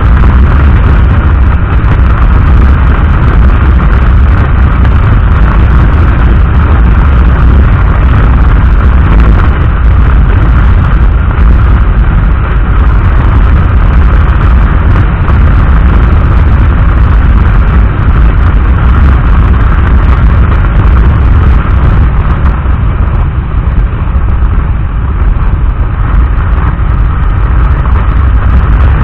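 Loud, distorted wind buffeting and road rumble on the camera microphone of a moving motorcycle, steady throughout with the engine buried beneath it.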